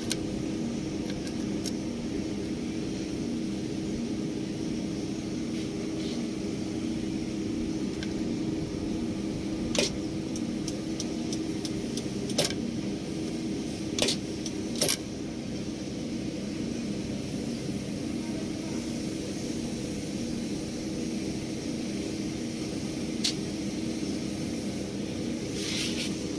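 Heavy construction machine's diesel engine idling steadily. Keys jingle and click sharply against the metal dash a handful of times, mostly between about ten and fifteen seconds in.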